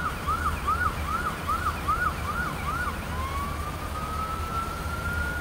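Siren sounding about eight quick rising-and-falling yelps, then switching about three seconds in to one slow rising wail, over a steady low rumble.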